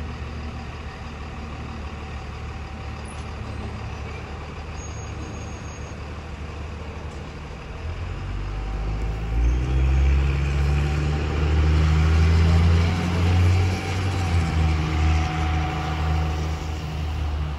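A commuter train pulling away with a steady low rumble. From about eight seconds in, road vehicles drive over the railroad grade crossing and their engines pick up speed, a louder low rumble that swells and dips until near the end.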